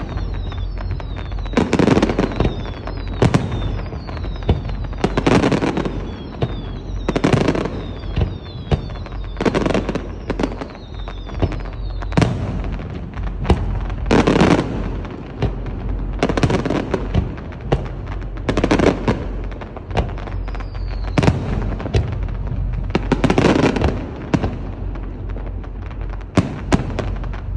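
Fireworks display: aerial shells bursting in a steady series of booms every one to two seconds, with falling whistles through the first half.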